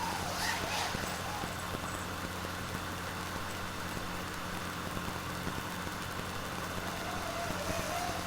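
FPV quadcopter's brushless motors running, a steady whir with a brief surge about half a second in and a wavering rise in pitch near the end as the throttle changes.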